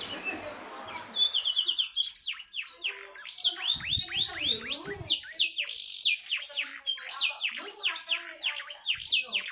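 Domestic canary singing a fast, tightly packed song. A raspy passage gives way about a second in to a quick ticking run, then rapid strings of falling whistled notes, about four a second.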